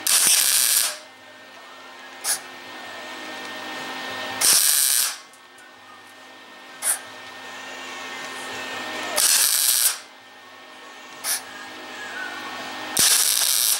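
Wire-feed (MIG) welder running short bursts of weld along a steel fender patch seam: four bursts of just under a second each, about every four and a half seconds, with a brief sharp snap between each pair. The seam is being welded in short bursts, slowly, so the thin steel panel does not warp.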